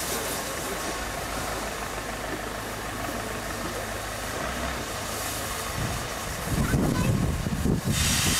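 The diesel engine of a JCB Loadall telehandler runs steadily as it tips a bucket of coal into a steam locomotive's tender. The coal rumbles in from about six and a half seconds. Near the end, steam from the Peppercorn A1 locomotive hisses in a burst.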